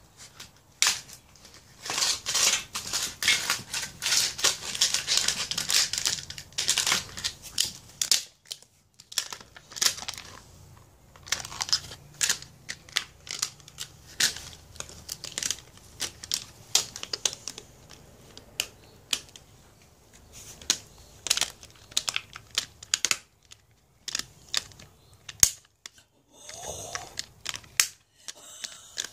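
Rhodesian Ridgeback puppy chewing and tearing at a toy and its bed: dense crackling and crinkling with sharp clicks, in bursts with short pauses.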